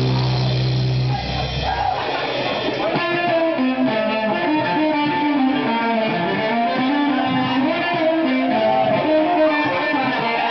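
Live band music, loud. A held chord with deep bass rings and stops about a second in. Then electric guitar plays loose, bending notes with the low end dropped out.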